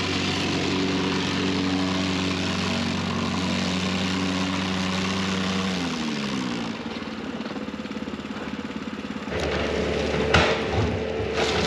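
Mustang plate compactor's small gasoline engine running, its vibrating plate working crushed rock. About six seconds in the engine note slides down and runs quieter for a few seconds, then a louder steady hum with a few knocks comes back near the end.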